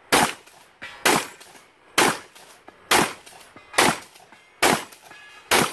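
Seven gunshots fired at a steady pace, about one a second, each a sharp crack with a short ringing tail.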